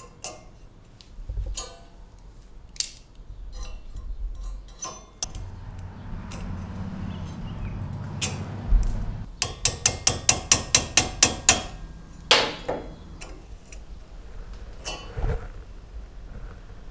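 Small metal clicks and scrapes as metal rose petals are worked with pliers against an anvil. About halfway through comes a quick run of about a dozen light metal-on-metal taps, roughly five a second, followed by one heavier strike.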